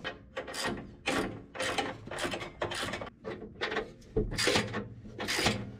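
Hand socket ratchet tightening bumper mounting bolts: a rasping run of pawl clicks on each back-swing, repeated about twice a second.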